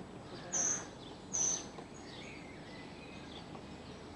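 Two short, high-pitched bird calls about a second apart, with fainter birdsong after them, over a steady outdoor hiss.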